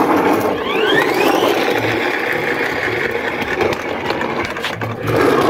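Plastic toy car's wind-up gear motor whirring. It rises in pitch in the first second or so, then settles into a steady whir as the car runs across concrete, and grows louder again near the end.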